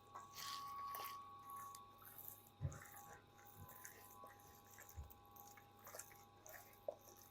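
Faint wet squelching and rustling of hands mixing raw chicken pieces in a yogurt, ketchup and oil marinade, with a couple of soft knocks.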